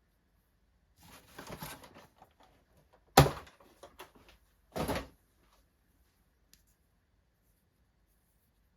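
Toy packaging being handled: a short rustle, then a sharp knock about three seconds in, a few light clicks, and a brief scraping clatter near five seconds.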